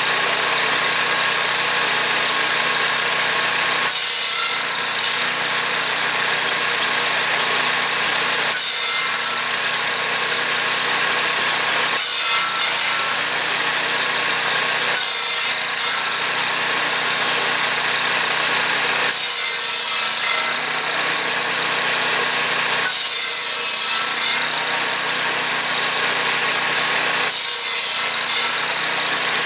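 Cordwood buzz saw with a 30-inch circular blade, belt-driven by an 8 hp Tecumseh single-cylinder engine, running steadily while slab wood is fed through it. The blade cuts through the wood about seven times, roughly every three to four seconds, and the sound of the saw and engine changes with each cut.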